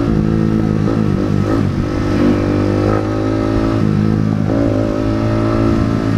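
Yamaha R15's single-cylinder engine running through an SC Project exhaust with its silencer insert fitted, heard while riding. The engine holds a steady note, and its pitch shifts about a second in and again around four seconds in.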